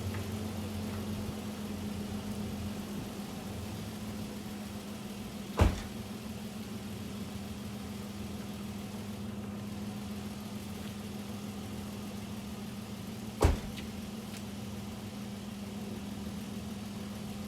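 Vehicle engine idling steadily with an even low hum. Two sharp knocks about eight seconds apart break through it.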